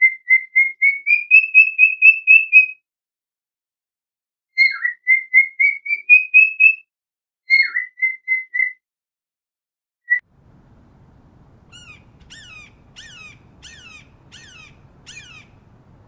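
Cockatiel whistling: three runs of quick, evenly spaced whistled notes, each opening with a downward swoop and then climbing slightly in pitch, then one lone note. About ten seconds in it gives way to a faint series of about seven sharp, falling calls, the cackle of a Cooper's hawk.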